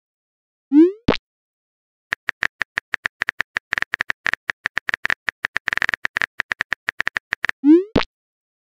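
Chat-app sound effects: a short rising pop ending in a click about a second in, then a rapid run of phone-keyboard typing clicks for about five seconds, then another rising pop near the end.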